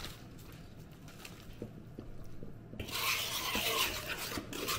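Batter being stirred and scraped in a plastic mixing bowl: a few soft taps at first, then about three seconds in a rasping scrape that lasts over a second.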